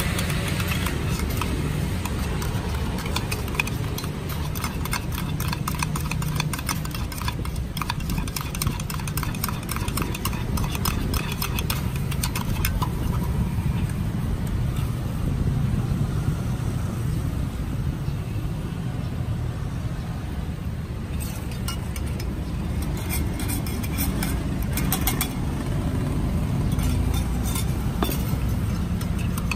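Metal spoon stirring fast inside a stainless steel milk pitcher, making a rapid run of clinks that pauses midway and then resumes, over a steady low engine rumble.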